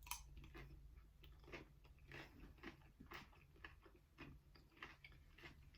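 Close-miked eating: a crisp bite into a chip piled with shrimp aguachile, then steady chewing with short, irregular crunches, two or three a second.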